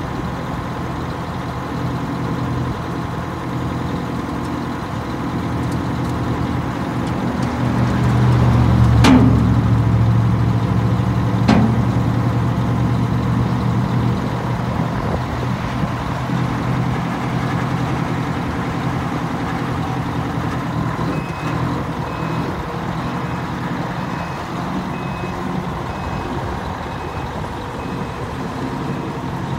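Diesel engine of a 1984 Western Star dump truck running steadily, growing louder for a few seconds midway while its raised dump bed is being lowered, with two short, sharp air releases a couple of seconds apart. In the last third a backup alarm beeps at an even pace, a little faster than once a second.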